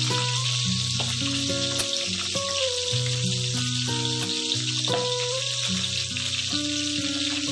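Milkfish steaks frying in hot oil in a pan, a steady sizzle throughout, with background music of slow, held notes underneath.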